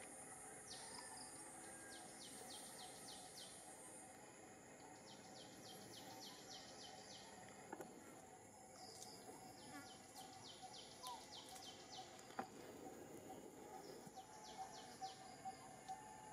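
Quiet forest ambience: insects calling in quick trains of short high chirps, about five a second, with a steady high insect hiss in the first few seconds.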